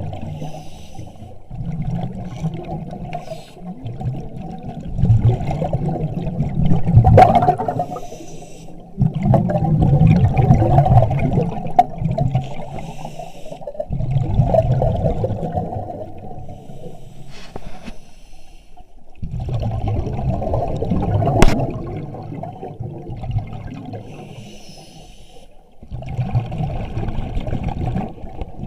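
Surface-supplied diver breathing underwater: each exhalation comes out as a burst of bubbling, about every four to five seconds, with two sharp clicks in between.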